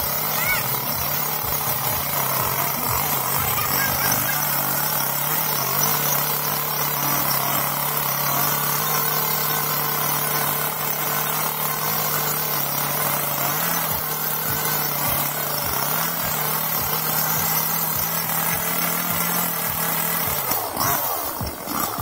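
Petrol chainsaw running steadily at high revs as it cuts into the base of a standing tree trunk. About a second before the end the revs fall away as the cut is paused.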